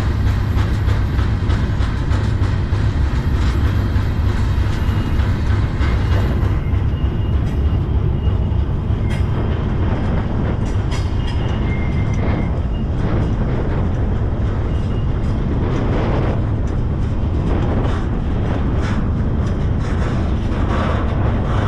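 Freight train rolling, heard from aboard a car: a steady, heavy rumble of wheels and cars, with scattered clicks and a few faint high squeals.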